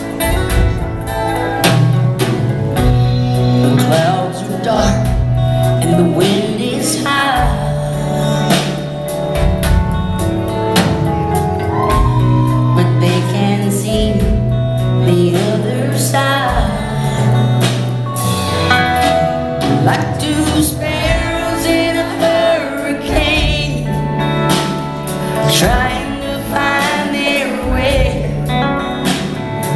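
Live country band playing a ballad through a concert PA, with electric guitar over a steady beat and a woman singing lead.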